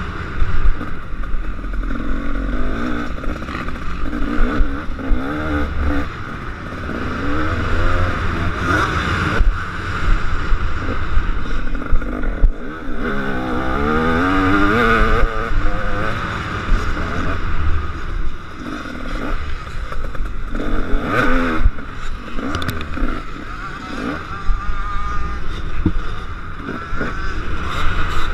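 KTM 250 SX two-stroke motocross bike engine revving up and dropping off again and again as it is ridden hard round the track.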